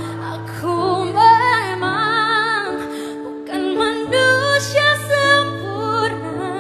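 A woman singing a slow melody, holding notes with wide vibrato, over a sustained instrumental accompaniment.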